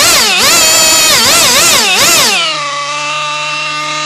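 Nitro model engine on a break-in test stand being revved up and down about five times in quick succession, then settling to a steady idle about two and a half seconds in. It is still running rich during its break-in.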